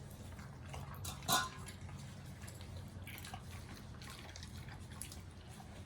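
German Shepherd chewing raw meat, with wet smacking and faint crunching and one sharper click about a second in, over a steady low hum.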